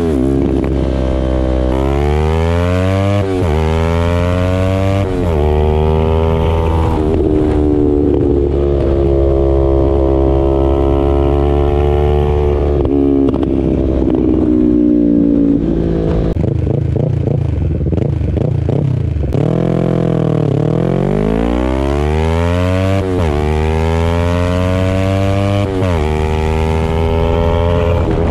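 Yamaha R3's 321 cc parallel-twin engine through an M4 carbon fiber full exhaust with the baffle out, accelerating hard and shifting up through the gears: the revs climb and drop in quick repeated sweeps. Midway it holds steady revs for several seconds, then the revs fall away before it pulls up through the gears again.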